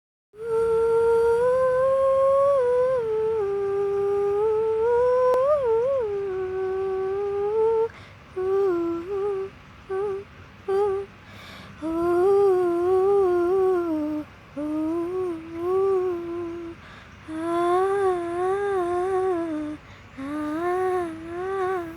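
A woman humming a melody unaccompanied. She holds long, slowly gliding notes for the first several seconds, then hums shorter wavering phrases with brief pauses between them.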